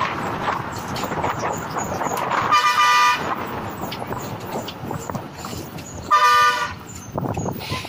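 Bus horn sounding two short blasts, about half a second each, roughly three and a half seconds apart. Between them the moving bus gives a steady rush of road and wind noise with body rattle.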